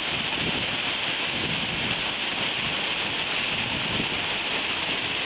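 Steady hiss of rushing, falling water, with wind gusting on the microphone.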